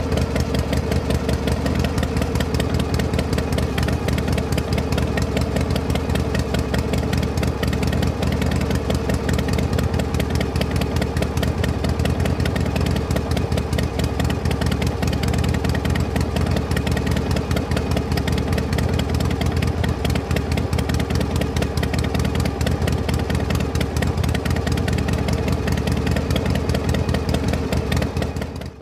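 Miniature belt-driven flour mill and the small motor of the toy tractor driving it, running steadily while grinding grain into flour: a steady hum with a fast, even rattle.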